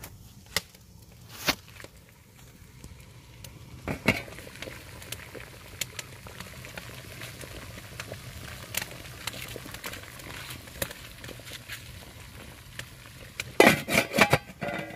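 Pot of stew bubbling over a wood fire in an agungi (traditional Korean firebox), with scattered sharp crackles from the burning wood and a burst of louder clacks near the end.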